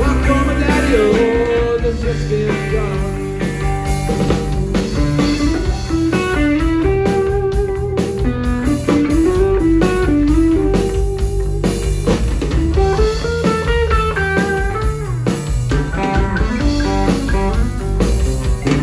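Live rock trio playing: an electric guitar carries a melodic lead line of bending, sliding notes over bass guitar and drums.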